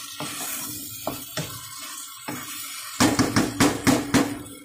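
Wooden spatula stirring a thick masala in a nonstick pan, knocking and scraping against the pan. A quick run of loud knocks comes near the end.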